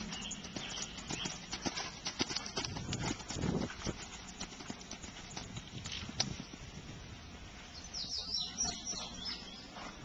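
Hoofbeats of a horse cantering on sand arena footing and jumping a fence: a run of irregular muffled thuds, loudest about three and a half seconds in.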